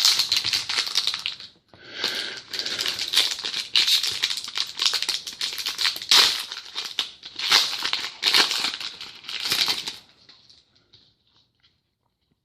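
Crinkling and rustling of trading card pack wrappers and cards being handled, in irregular bursts that stop about ten seconds in.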